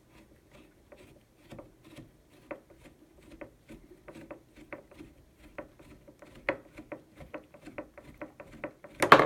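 Screwdriver working the lever screw out of a Marlin 336 lever-action rifle: a run of small, irregular metal clicks and ticks, a few a second, with a louder clatter of clicks near the end.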